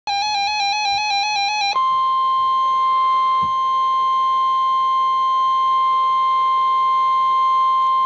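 NOAA Weather Radio receiver sounding a severe thunderstorm warning alert: a rapid two-pitch warble for under two seconds, then the steady 1050 Hz Warning Alarm Tone held without a break.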